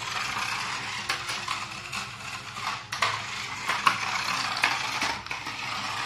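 Small battery-powered RC stunt car driving on a hard tiled floor: its electric drive motors and plastic gearboxes whir steadily, with several sharp clattering clicks as the plastic wheels and body knock against the floor.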